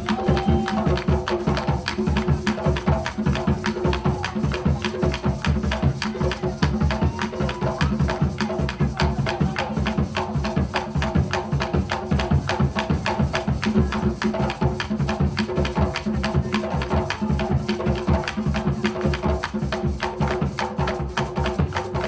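Mapalé music, the Afro-Colombian drum dance: a fast, steady, driving beat of drums and shakers.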